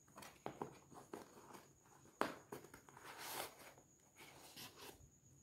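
Faint handling sounds of a cardboard box as a fabric binocular case is drawn out of it: light scrapes and taps, a sharper tap about two seconds in, then a longer rustle.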